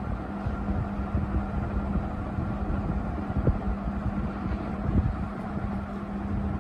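National F-560A1 56-inch industrial ceiling fan running, its motor giving a steady, even hum rather than the uneven hum a dimmer-type regulator causes. Under it is a low, gusty rumble of air from the blades buffeting the microphone.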